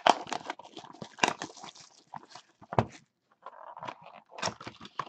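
Plastic shrink wrap crinkling and tearing as it is ripped off a sealed trading-card box, followed by the cardboard box being handled and opened. The crackles are irregular, with a few sharper snaps among them.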